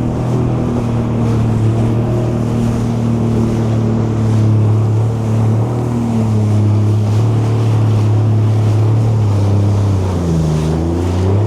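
Jet ski engine running steadily at speed over the water, with water noise and wind on the microphone. Its note drops and then rises again near the end.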